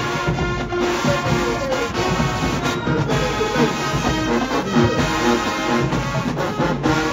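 Show-style marching band playing: brass sections carrying the tune over drum hits.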